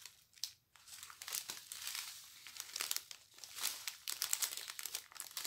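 Small clear plastic bags of round diamond-painting drills crinkling in the hands as they are handled and folded over, an irregular run of crackles.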